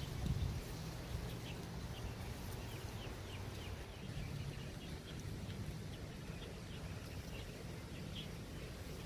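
Short high chirps repeating irregularly, one or two a second, typical of a small bird calling, over a steady low rumble of wind on the microphone.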